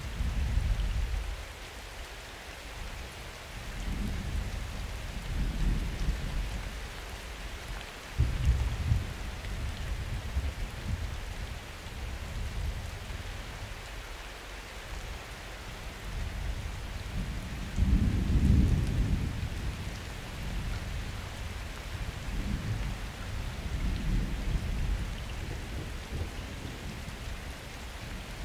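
Summer thunderstorm: steady rain hissing, with thunder rumbling low several times. One clap breaks in suddenly about eight seconds in, and the loudest roll comes about two-thirds of the way through.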